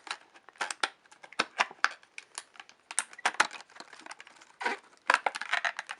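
Toy box packaging being opened by hand: a quick, irregular run of small clicks, crinkles and rustles, busiest near the end.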